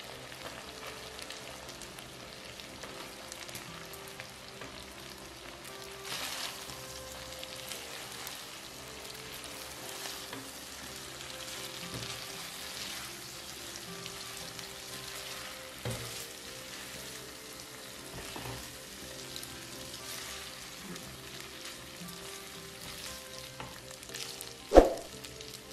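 Shrimp and spaghetti sizzling in a buttery sauce in a nonstick pan, stirred and tossed with tongs, with a few soft knocks. One sharp clank near the end.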